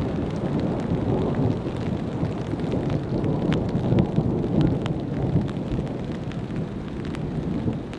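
Light rain ticking on a tarp overhead, many small sharp drop hits over a steady low rumble.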